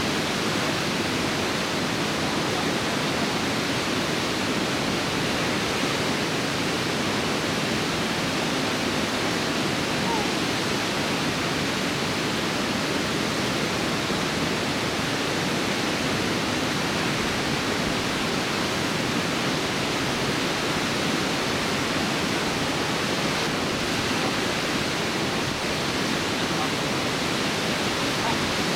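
Water pouring over a river weir: a steady, loud, even rushing with no breaks.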